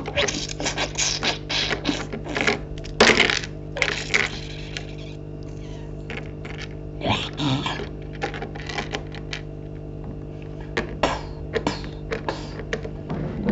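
Plastic Lego minifigures and small Lego pieces clicking and clattering on a Lego baseplate as they are handled and knocked over: a quick, irregular run of short sharp clicks, thickest in the first few seconds.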